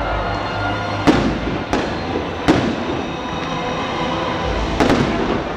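Aerial fireworks shells bursting overhead: sharp bangs about a second in, again shortly after and near two and a half seconds, then a quick double bang near the end, over a steady background din.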